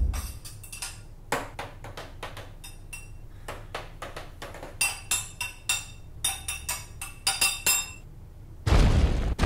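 A metal spoon clinking against a ceramic mug in a long, irregular run of sharp, ringing clinks, loud and exaggerated, coming quicker in the second half. Near the end, a heavy, low stomping thud of a footstep on the floor.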